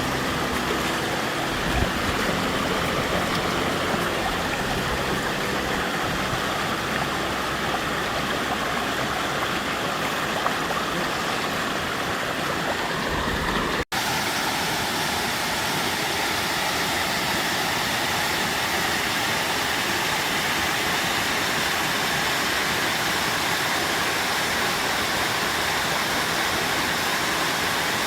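Waterfall at the Akame 48 Falls gorge, water steadily rushing and splashing. About halfway through the sound cuts out for an instant and resumes with less low rumble.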